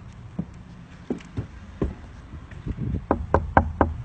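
Footsteps, then four quick knocks, about four a second, near the end, with a low steady hum underneath.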